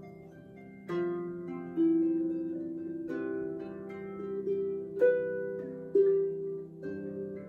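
Lyon & Healy lyric lever harp played by hand: an improvised flow of plucked notes and chords left to ring. Fresh plucks come about every second or so, the firmest about five and six seconds in.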